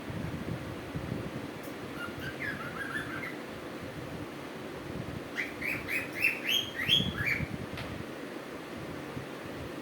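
Cuckoo calling: a faint run of short whistled notes about two seconds in, then a louder series from about halfway that climbs in pitch note by note before dropping, over a steady low background hum.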